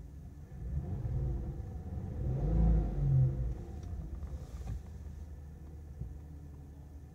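2002 VW Jetta GLI's VR6 engine running, rising in speed to a rev about two to three seconds in, then dropping back to a steady idle.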